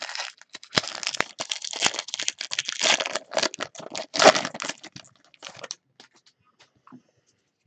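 Wrapper of a 2019 Big League baseball card pack crinkling as it is handled and torn open, with the loudest tear about four seconds in. A few lighter rustles follow as the cards are pulled out.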